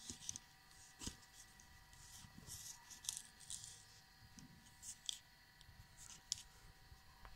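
Faint handling noise of a hand moving inside a tote bag's lining and around its zippered inner pouch: scattered soft rustles and light clicks.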